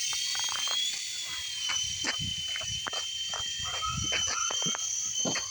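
Toy remote-control helicopter's small electric rotor motor whining at a steady high pitch after spinning up, with scattered clicks and knocks.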